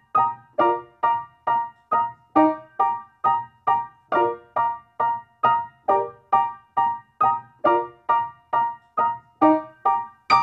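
Background music: a melody of short, evenly spaced notes, about two and a half a second, each dying away quickly.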